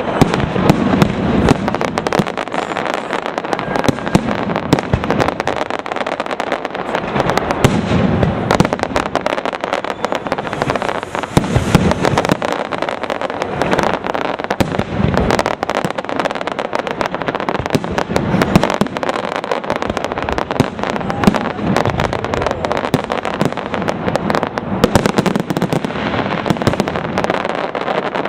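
Large fireworks display firing nonstop: a dense barrage of shell bursts, bangs and crackling from aerial shells and candles, with no let-up.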